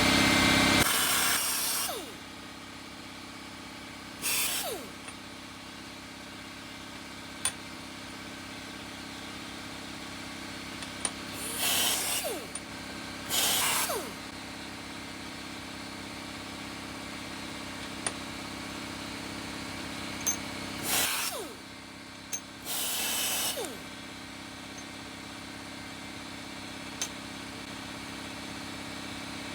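Bench grinder running with a steady motor hum, louder for the first two seconds. About five short bursts of grinding noise come as the steel vise parts are pressed against the spinning wheel to take off rust.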